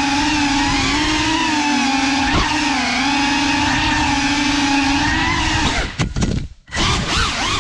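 GEPRC CineLog35 3.5-inch cinewhoop's brushless motors and ducted props whining steadily, the pitch wavering a little with throttle. About six seconds in the motors cut almost to silence for about half a second, then spin back up.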